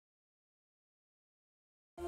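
Total digital silence, with no sound at all.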